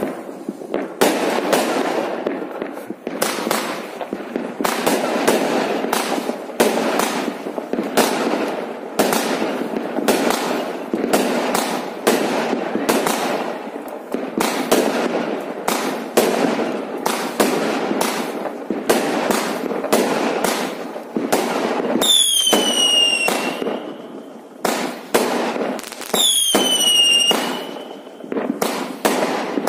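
Fireworks going off in a rapid barrage of bangs and cracks, about one or two a second, over a continuous crackle. From about two-thirds of the way in, three whistles sound, each falling in pitch.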